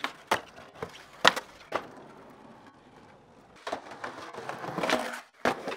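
Skateboard wooden deck clacking and slapping on concrete: three sharp hits in the first two seconds, then wheels rolling for about a second and a half, ending in another sharp smack near the end.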